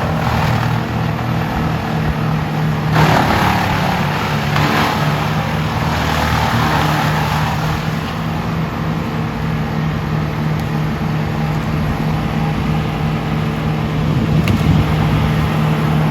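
Engine of a 440-horsepower wood chipper running steadily at working speed, with brief louder rushes about three and four and a half seconds in.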